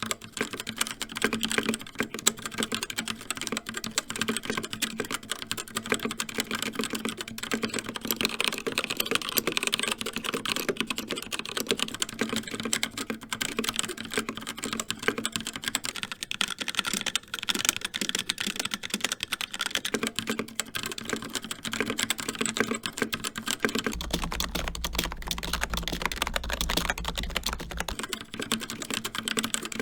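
Continuous fast typing on a series of keyboards, changing every eight seconds. First a CZC Halfling with Kailh Red linear switches, then a CZC Dwarf with Kailh Red switches, then a HyperX Alloy Origins with HyperX Red switches, and last a Lidl Silvercrest semi-mechanical keyboard. A low hum runs under the typing for a few seconds near the end.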